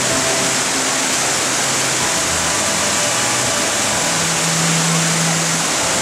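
Yudaki waterfall: a loud, steady rush of water cascading down a broad rock face into its pool.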